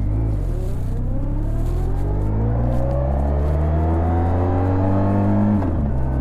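Honda VFR1200X Crosstourer's V4 engine through an Akrapovic titanium exhaust, accelerating hard: the revs climb steadily for about five seconds, then drop sharply near the end.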